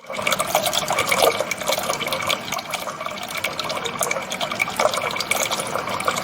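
Water running and splashing into a container, a steady wash of small splashes.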